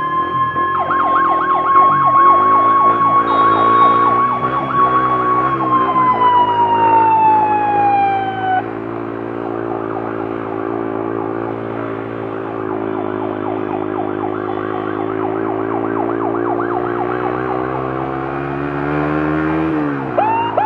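Ambulance siren on a fast, repeating yelp throughout, with a long steady wail tone that slides down in pitch and cuts off about eight seconds in. Underneath runs an engine note that rises just before the end and then drops.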